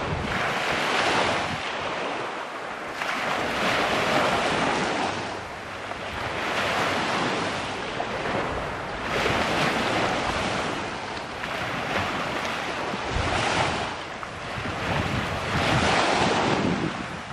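Sea waves washing onto the shore, a rushing hiss that surges and fades about every two to three seconds.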